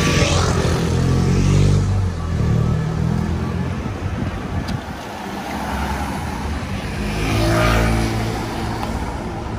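Street traffic: cars and a van driving past close by, with engine hum and tyre noise. The sound swells as a vehicle passes near the start and again about eight seconds in.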